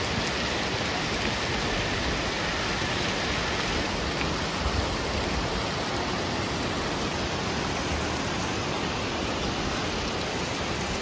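Steady, even rush of water from Ogawa Falls, a 50-metre waterfall running with little water.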